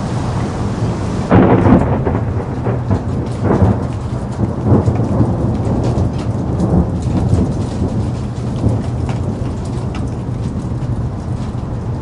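Steady rain falling, with thunder breaking about a second in and rolling on in fainter swells for several seconds. Scattered drops tick through it.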